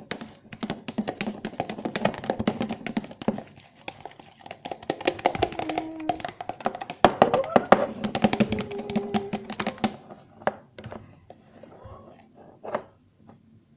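Spoon stirring a shampoo, toothpaste and salt slime mixture in a bowl: rapid clicking and tapping against the bowl, thinning out and stopping after about ten seconds.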